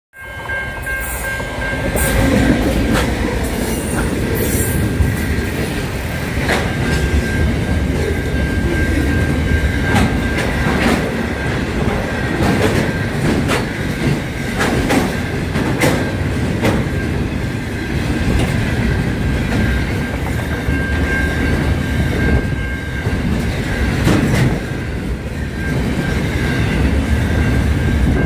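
Aurizon intermodal freight train passing close by: a steady heavy rumble of container wagons with irregular sharp clacks as the wheels cross rail joints, and a thin steady high-pitched wheel squeal through much of it.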